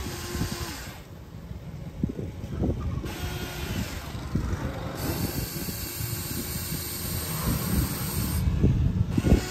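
Huina 593 RC model excavator at work: irregular scraping and knocking of the bucket in loose material over a hiss, with a steady motor whine that stops about a second in.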